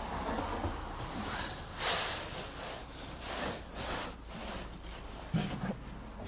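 Shovel scraping through and spreading sand, a few rasping strokes.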